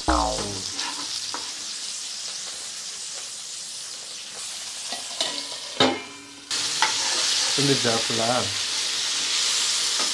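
A whole masala-coated koduva (Asian seabass) shallow-frying in oil with curry leaves in a non-stick pan, sizzling steadily. About six seconds in there is a short knock, and the sizzle then comes back louder.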